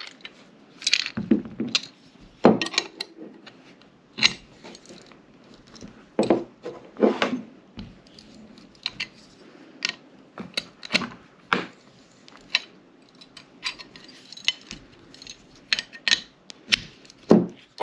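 Irregular metallic clicks and clinks of a sight pusher tool being worked on a Glock 17 slide, as the tool is adjusted and turned to drive the sight across its dovetail.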